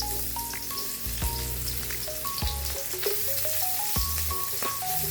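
Shallots, garlic and red chili sizzling steadily in hot oil in a frying pan.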